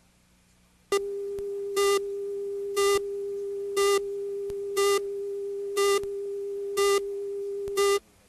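Videotape countdown leader: a steady test tone starts about a second in, with a louder, brighter beep over it once a second, seven beeps in all, and everything cuts off suddenly near the end.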